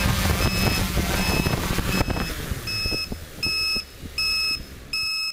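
Drone's electronic beeper giving a steady high beep about every three quarters of a second. A rushing motor-and-propeller noise under it stops about two and a half seconds in, leaving the beeps loud and clear.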